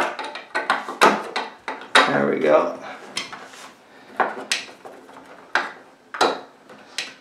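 Scattered sharp clicks and knocks from a plastic flip-out sink tray and its metal hinge being handled and pushed into place in a wooden cabinet, with a stubby screwdriver tightening the hinge screws. There are about a dozen separate knocks, bunched in the first two seconds and then spaced out.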